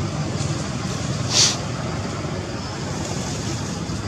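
Steady low rumble of background noise, like distant road traffic, with one short high-pitched squeak about a second and a half in.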